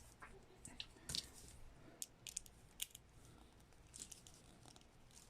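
Near silence with a few faint, short clicks and scrapes of small plastic action-figure parts being handled and fitted.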